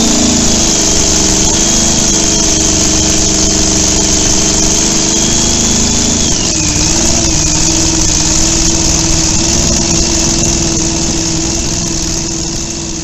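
Homemade chopper motorcycle's engine idling steadily, with a brief dip and wobble in pitch about six and a half seconds in.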